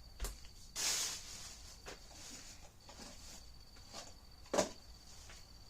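Disposable gloves being pulled on: a brief rustle about a second in and a few light clicks and knocks.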